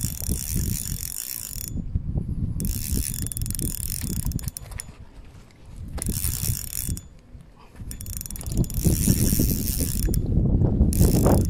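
Spinning reel being cranked to retrieve a crankbait, its gears whirring in spells of about two seconds with short pauses between. A low rumble runs underneath and grows louder near the end.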